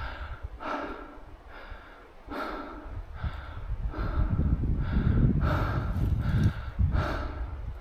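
A man breathing hard and fast, short noisy breaths in and out about every second: he is winded from climbing uphill.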